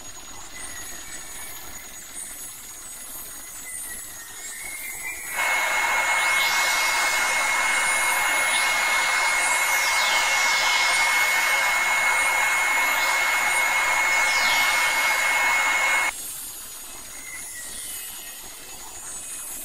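A loud, steady rushing hiss with a high whistle-like tone running through it cuts in abruptly about five seconds in and cuts off abruptly about eleven seconds later. Before and after it there is a quieter rumble with faint gliding tones.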